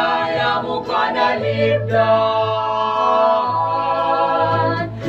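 Mixed vocal quartet singing a slow hymn with electronic keyboard accompaniment, holding one long chord from about a second and a half in until near the end.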